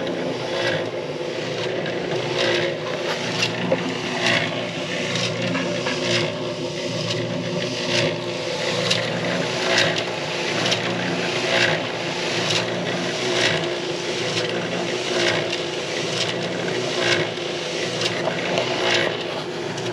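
Concrete mixer running steadily, with a scrape about once a second as the concrete mix tumbles in the turning drum.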